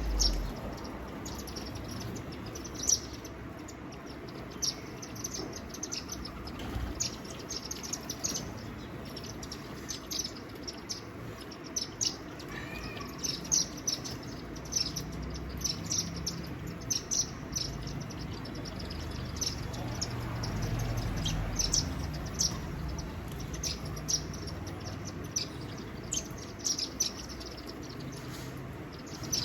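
Small birds chirping: short, high chirps repeated irregularly, often several a second.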